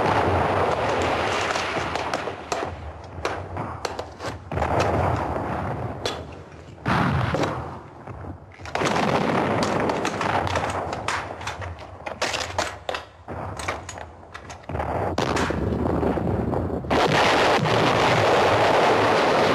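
Battle sound effects of rapid gunfire in bursts, many sharp shots close together, with long heavy blasts of explosions near the start, in the middle and toward the end.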